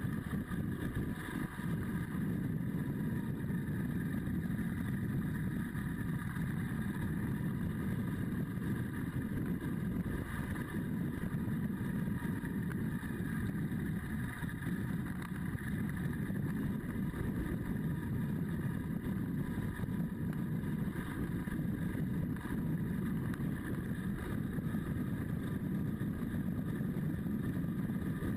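Motorcycle engine running at a steady cruise, mixed with wind and road rumble, with no change in pace.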